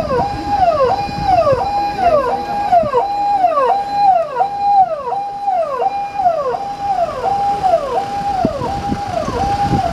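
Electronic siren of a police escort jeep sounding a fast repeating wail: each cycle jumps up, holds, then falls, about one and a half times a second, over the low rumble of the convoy's vehicles. It cuts off at the very end.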